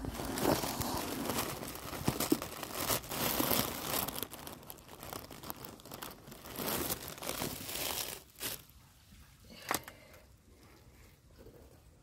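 Close rustling and crinkling noise with sharp crackles, loudest over the first eight seconds or so. It then drops away to a quieter stretch with a single click.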